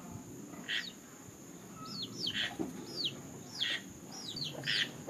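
Domestic chick peeping repeatedly: short, high, downward-curving peeps, about two a second, with a hen close by.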